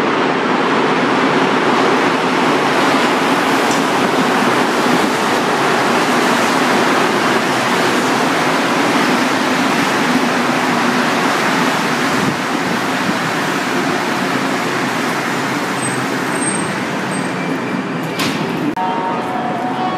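A rubber-tyred Montreal Metro MR-73 train comes into the station and rolls past close by with a loud, steady rumble, then eases off as it brakes to a stop. A sharp click and a couple of short steady tones come near the end.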